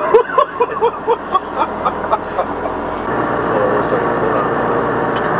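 A person laughing in quick pulses, about four a second, fading out over two and a half seconds. About three seconds in, steady road and engine noise from inside a moving vehicle takes over.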